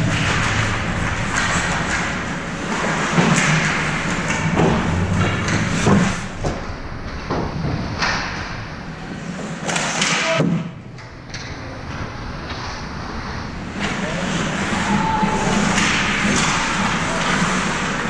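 Ice hockey game sounds in an indoor rink: repeated thuds and slams of the puck and players against the boards and sticks, over the noise of the arena and spectators.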